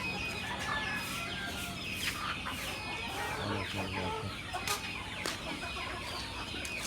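A flock of Hilli chickens clucking and calling, many short overlapping calls at once, over a steady low hum.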